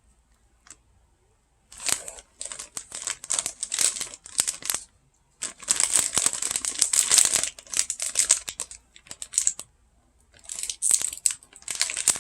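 A plastic potato-stick snack bag crinkling and crackling as it is handled and pulled at to get it open, in three long spells broken by short pauses, starting about two seconds in.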